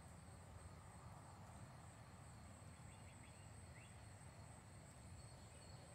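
Near silence: faint outdoor night ambience, a steady high hiss with a few faint chirps about halfway through.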